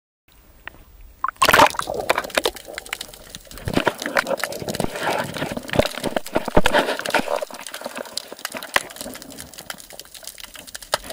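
Water sloshing and gurgling as picked up by a camera held underwater, with many sharp clicks and crackles throughout. It starts suddenly about a quarter second in and is loudest around a second and a half in and again about six and a half seconds in.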